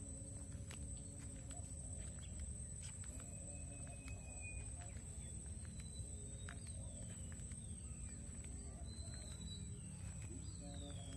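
Outdoor ambience with scattered bird calls: short chirps and quick falling whistles. Underneath there is a steady low rumble and a constant thin high-pitched tone.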